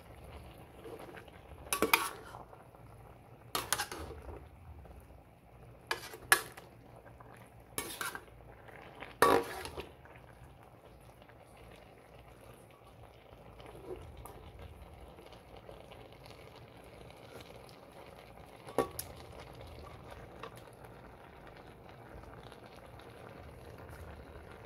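A cooking utensil scraping and knocking against the pan while pork and sliced opo are stirred: five sharp clattering strokes in the first ten seconds. After that the dish simmers with a low steady sound, broken by one more knock a little past the middle.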